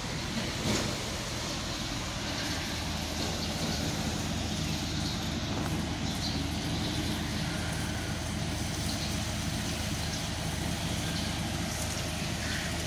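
Steady outdoor street ambience: a low rumble with an even hiss, with one brief knock under a second in.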